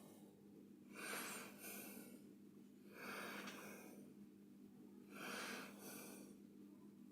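A person breathing softly close to the microphone: three breaths about two seconds apart, over a faint steady low hum.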